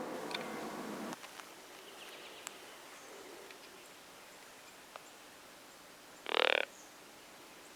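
A crow caws once, a short harsh call, about six seconds in. Before it, background music ends about a second in, leaving faint outdoor quiet with a few light clicks.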